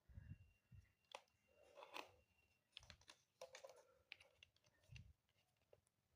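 Faint, irregular clicks and light knocks, with a few dull low thumps, as of small parts and tools being handled on a workbench. A thin, high, steady tone sounds for the first couple of seconds.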